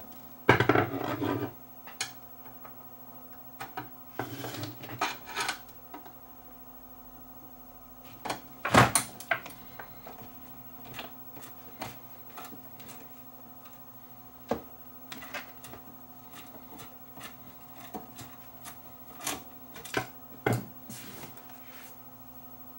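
Scattered clicks, taps and scrapes of hand tools and screws on a CRT monitor's metal chassis as its ground straps are undone, with the loudest knock about nine seconds in. A faint steady hum runs underneath.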